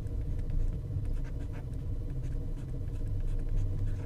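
Pen stylus scratching and tapping on a drawing tablet while lines are drawn: faint short ticks scattered through, over a steady low hum.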